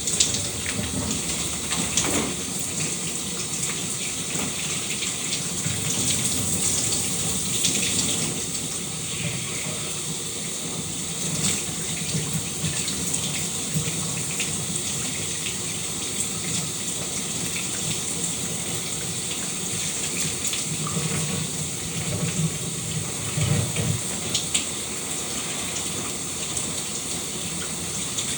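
Shower running steadily, water spraying and splattering on a surface, with small irregular splashes.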